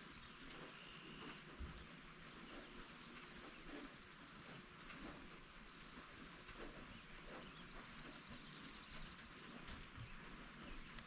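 Faint steady rain with scattered drips and ticks, and a high chirp repeating evenly a few times a second behind it.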